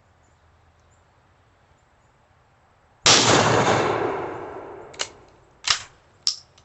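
A single 12-gauge shotgun blast from a Mossberg 395 KA bolt-action, about three seconds in, with a long fading echo. It is followed by three sharp clicks as the bolt is worked to cycle the action.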